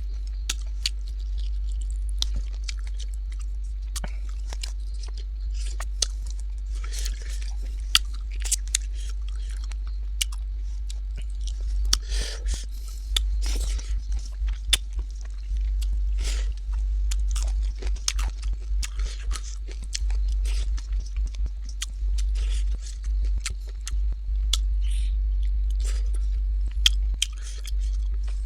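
Close-up chewing and mouth sounds of a person eating duck curry with rice: wet smacks and small crunches, over a steady low hum.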